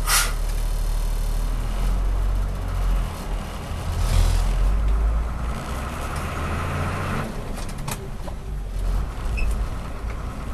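Manual-transmission moving truck's engine pulling away from a stop, heard from inside the cab. The truck starts off in second gear, with a short sharp hiss or clunk at the start. The engine note climbs and then drops off abruptly about seven seconds in.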